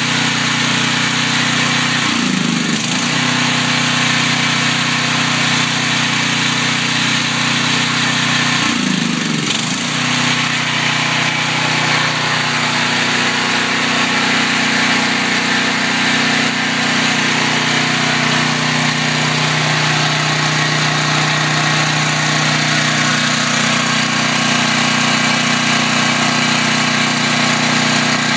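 Briggs & Stratton 11 hp OHV engine of a portable generator running steadily on propane through a tri-fuel conversion kit. Twice, about two and nine seconds in, its speed dips briefly and recovers as the propane supply is turned down at the tank valve and opened back up.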